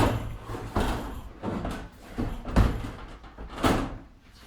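Built-in Samsung oven being pulled out of its cabinet housing: a few knocks with scraping between them as the oven body slides out.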